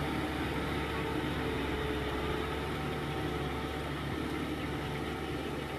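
Tractor engine running steadily as it pulls a disc harrow through wet rice-paddy mud.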